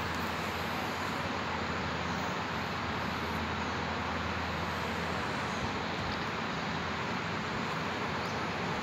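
Steady background noise: an even hiss with a low hum that fades about five and a half seconds in.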